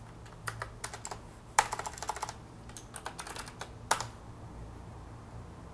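Typing on a computer keyboard in irregular flurries of keystrokes, ending with one louder click, over a faint steady low hum.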